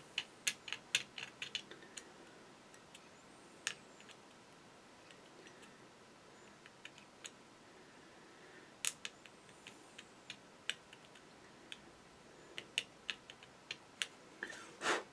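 Razor saw cutting a plastic model-kit fuselage in short strokes, heard as sharp ticks: a quick run of them in the first two seconds, then scattered ones, and one longer, louder stroke near the end.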